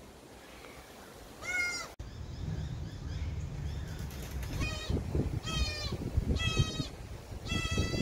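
Juvenile channel-billed cuckoo screaming to beg for food: one harsh, wavering, high-pitched screech about a second and a half in, then four more at roughly one-second intervals.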